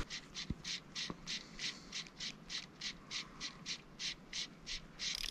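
Spinning reel being cranked to retrieve a lure, its gearing giving a raspy pulse with each turn of the handle, about three to four a second, until the cranking stops near the end.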